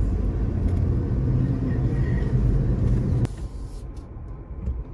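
Low rumble of a Jeep driving, heard from inside the cab. A little over three seconds in it cuts off abruptly to a fainter rumble.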